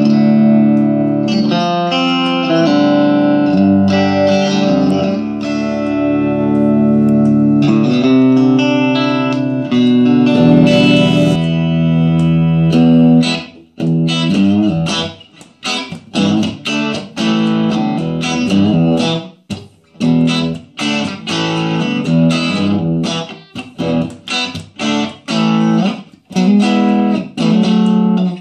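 Electric guitar played through a 6V6 valve-powered, 20-watt 1x12 combo amplifier. It starts with ringing, sustained chords, and about halfway through switches to short, choppy chord stabs with brief silences between them.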